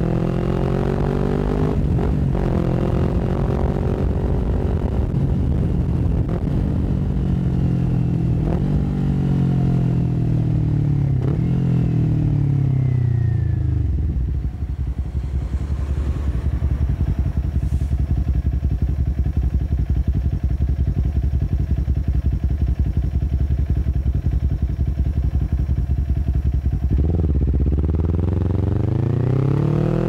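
Kawasaki Ninja 400's parallel-twin engine through an Akrapovic full-system exhaust. Over the first half the bike slows, its engine note falling with a few short breaks as gears change. It then idles steadily for about thirteen seconds before revving up again as it pulls away near the end.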